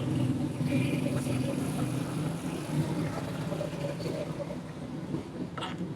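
A steady engine hum from a running engine somewhere in the background, with one sharp click near the end.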